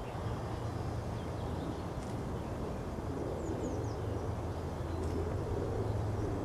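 Outdoor field ambience: a steady low rumble, with a few short, high, falling bird chirps about halfway through.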